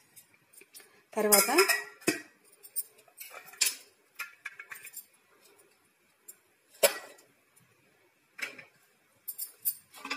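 Stainless-steel kitchenware clinking and knocking as a steel plate, a knife and a steel cooking vessel are handled and set down, in scattered separate knocks, the loudest about seven seconds in.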